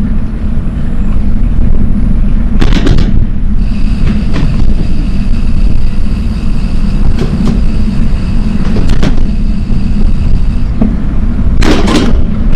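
Wind buffeting the microphone of a camera on a moving bicycle: a loud, steady low rumble, with a few short rattles about three seconds in and near the end. A steady high-pitched tone sounds through the middle few seconds.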